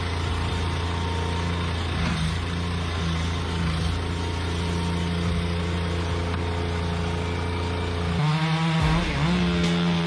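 Chainsaw engine running steadily, then its note rises and wavers about eight seconds in as the throttle is opened.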